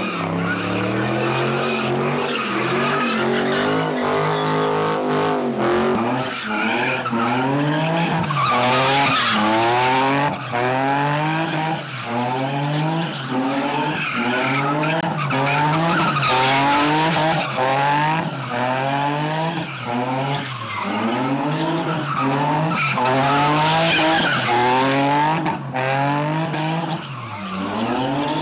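Car engine revving up and down over and over, roughly every second and a half, with tyres squealing and skidding, as a car drifts or spins donuts.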